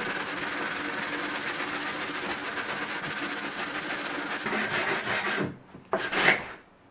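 Sandpaper rubbed back and forth by hand along the edge of a plywood panel: a steady, scratchy rasp that stops about five and a half seconds in, then one short stroke near the end.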